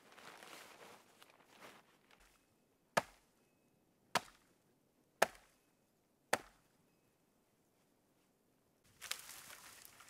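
Four sharp axe chops into wood, about a second apart, with soft rustling of movement before and after them.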